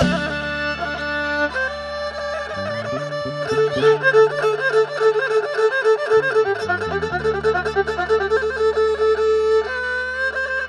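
Isan pong lang folk ensemble playing: a quick, ornamented melody line over a steady low drone, starting up just after a brief pause.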